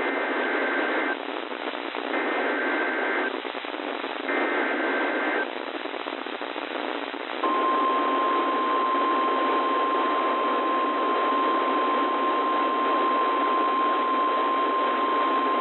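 NOAA Weather Radio emergency alert: three one-second bursts of SAME header data tones, a buzzy two-tone screech, then after a two-second gap the steady single-pitch warning alarm tone held for about nine seconds, all over radio static. It is the signal that a new warning broadcast is starting.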